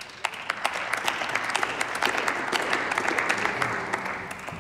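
Members of parliament applauding, many hands clapping, dying down near the end.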